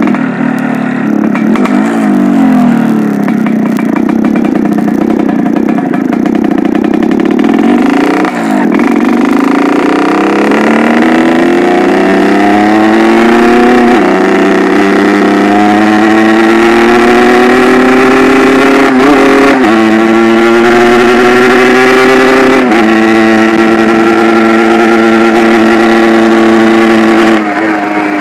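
Yamaha RX King two-stroke single-cylinder engine being revved after carburettor tuning. For the first eight seconds or so the revs rise and fall, then climb steadily for about ten seconds, are held high with a couple of small steps, and drop back shortly before the end.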